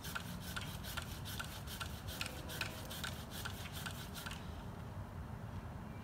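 Pole saw cutting through a tree branch overhead: quick, even back-and-forth rasping strokes of the blade in the wood, stopping about four seconds in.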